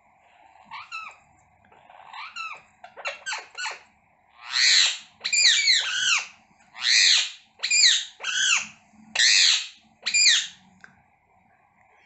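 Indian ringneck parakeets calling: a few soft calls, then a run of about nine short, loud, repeated squawks from about four and a half seconds in.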